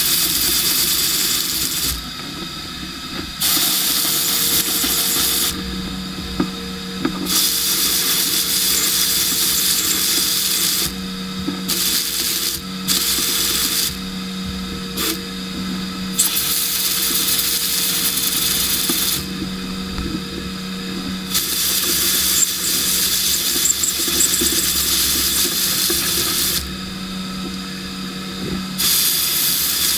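Sandblast cabinet gun hissing in long bursts as abrasive is blasted onto a small brass part, stopping for a second or two about six times as the trigger is released. A steady machine hum runs underneath.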